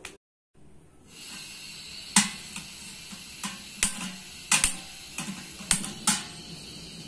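A piezo gas lighter clicks about eight times at the burner of a single-burner LPG cylinder stove, over a steady hiss of gas from the burner, until the burner lights.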